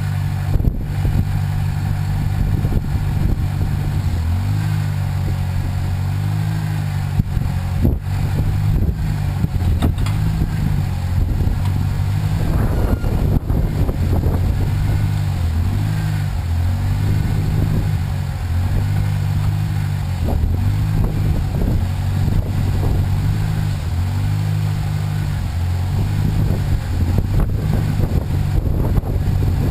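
Engine of a homemade backhoe running steadily, its pitch stepping up and down every second or two, with faint knocks and scrapes over it.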